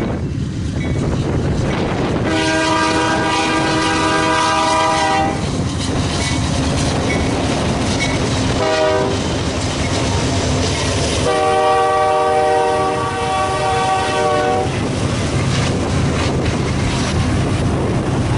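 A BNSF diesel locomotive's air horn sounds three blasts: a long one, a short one, then another long one. Under it run the rumble and wheel clatter of the passing freight train and heavy wind on the microphone.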